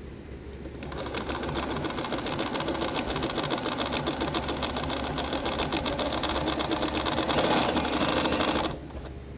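Bernina 1630 Inspiration Plus sewing machine sewing a selected stitch: a rapid, even run of needle strokes that starts just under a second in and stops suddenly near the end.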